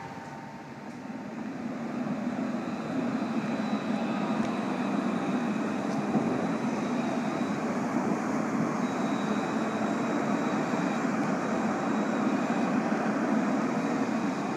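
Alstom Citadis low-floor tram passing close by. Its steady running noise swells over the first two or three seconds and then holds, with a faint high whine coming and going.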